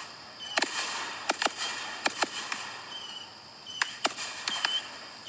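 Aerial firework shells bursting in a run of sharp bangs, about ten in all, several coming in quick pairs.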